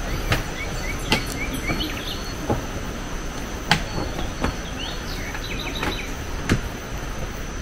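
Footsteps knocking on a wooden boardwalk and its steps, irregular, about one a second, over a steady high insect drone, with scattered short chirps.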